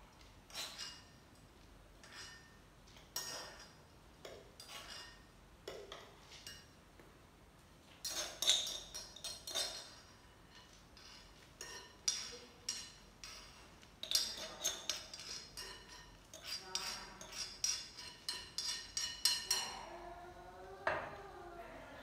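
Kitchen clatter: a utensil clinking and scraping against a bowl in short irregular knocks, coming thick and fast in two busier spells, as food is scooped out and tipped into a glass jar.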